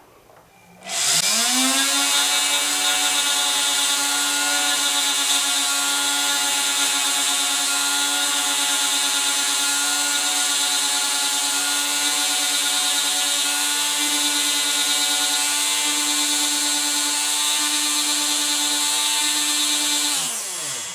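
The electric motor of a chuck-driven power tool spins up about a second in and runs with a steady whine at constant speed as the coin ring is polished to remove stutter marks. Near the end it winds down and stops.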